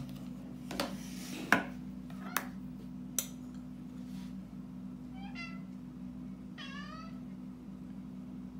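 A few sharp clicks of ice cubes dropped from a plastic ice tray into a tall glass of milk, the loudest about a second and a half in. Then, past the middle, a cat meows twice, the second call longer and bending up and then down in pitch.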